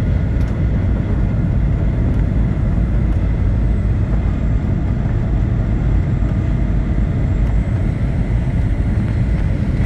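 Steady cabin noise of a jet airliner descending on approach: engine and rushing-air noise, mostly a deep rumble, with a faint thin steady tone above it.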